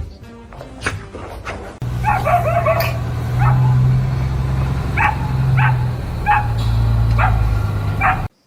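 Dog barking and yipping: a quick run of yips about two seconds in, then five single short barks, over a steady low hum.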